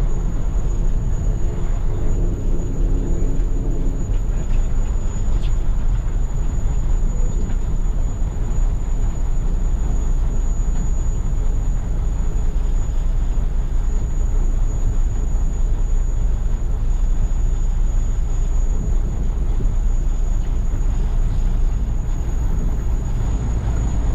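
Combine harvester running in the field: a loud, steady, deep rumble with a faint constant high whine above it.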